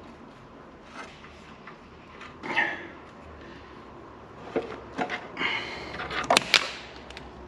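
Scattered clunks and knocks of metal engine parts being handled during an engine strip-down, with a cluster of sharper, louder knocks near the end.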